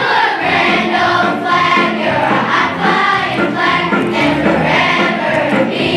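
Children's choir singing a patriotic song together with instrumental backing.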